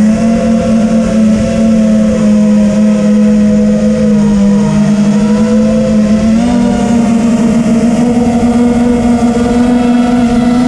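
TBS Vendetta racing quadcopter's brushless motors and propellers in flight: a loud, steady buzzing whine that steps up slightly in pitch about six and a half seconds in.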